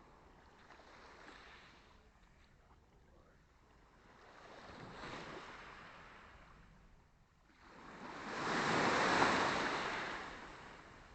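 Small sea waves washing onto the shore in a calm sea, one gentle swell about halfway through and a louder wash peaking near the end before it fades.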